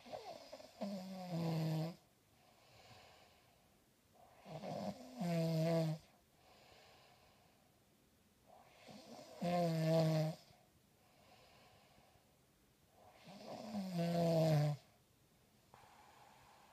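A sleeping person snoring: four snores about every four and a half seconds. Each breath in is a rasp that ends in a pitched honk, with quieter breaths out between.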